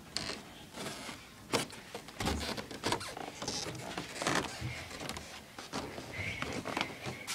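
Footsteps on stairs: irregular thumps and knocks with rustling, and a faint high steady tone near the end.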